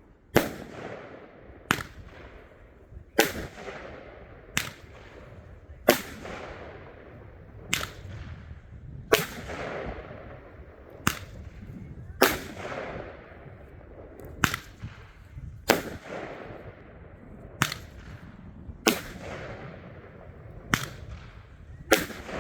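A Roman candle firing shot after shot, about fifteen sharp bangs spaced a second or two apart, each trailing off in a fading hiss and crackle.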